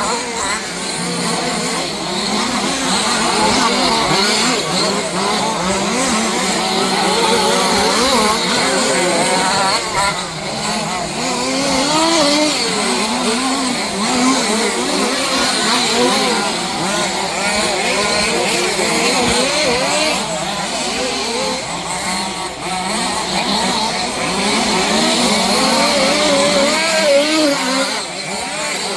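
Several 1/5-scale 4WD off-road RC cars racing, their small two-stroke petrol engines running together. Many overlapping engine notes rise and fall as the cars accelerate and back off.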